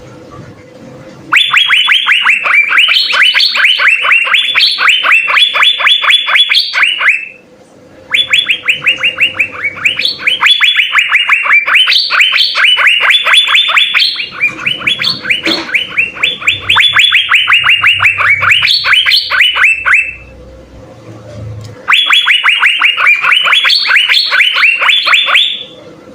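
Asian fairy-bluebird (cucak biru) singing loudly in long runs of rapid, sharp repeated notes, several a second, in bouts of a few seconds with short pauses between them.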